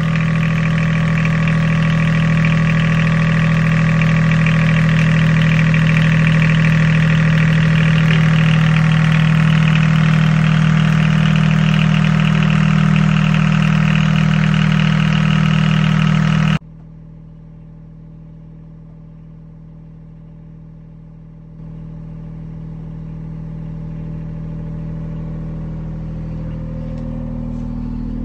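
Boat's generator engine running steadily in a floor hatch, loud and humming with its housing open. About 16 seconds in the sound drops suddenly and goes on much quieter, with the white sound-shield cover in place.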